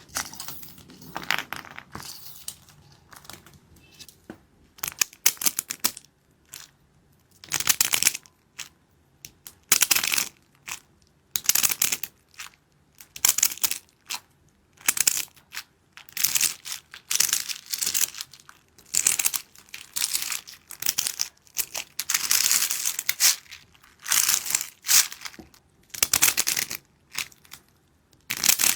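Close-up ASMR crinkling and crushing sounds in repeated short bouts of crackly noise, roughly one bout a second, with near-silent pauses between them.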